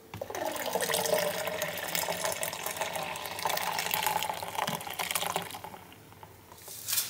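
Watermelon juice poured in a stream from a juicer's jug into a glass pitcher, splashing and foaming as it fills, the pitch rising early on; it tapers off after about five seconds as the stream thins.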